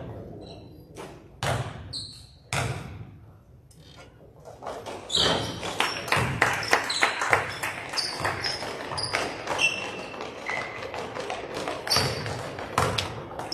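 Basketball bouncing on a gym floor and sneakers squeaking and pounding during play, in a large hall. A few single bounces early on, then a busier run of footfalls, bounces and short high squeaks from about five seconds in as the players run up the court.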